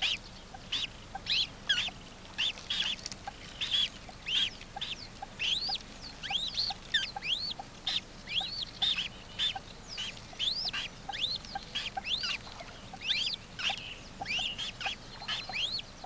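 Eurasian coot chicks peeping: a steady stream of short, thin, high-pitched calls that rise and fall, two or three a second.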